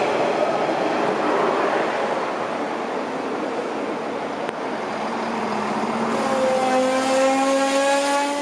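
Siemens Desiro Classic class 642 diesel multiple units moving through the station: a rushing rolling noise of a train on the rails, then about six seconds in a drone that slowly rises in pitch as one unit's drive winds up.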